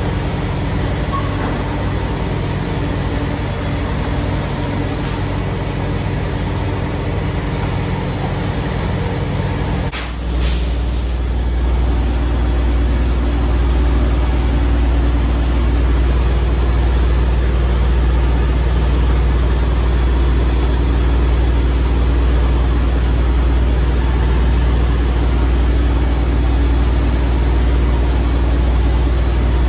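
Semi-truck diesel engine idling with a steady low hum. About ten seconds in, a short burst of hissing air; after it the low rumble is louder and steadier.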